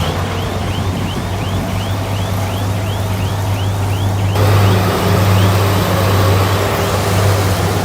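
Heavy earthmoving machine's diesel engine running steadily with a deep hum, and a high squeak repeating about three times a second. The sound shifts abruptly about four seconds in.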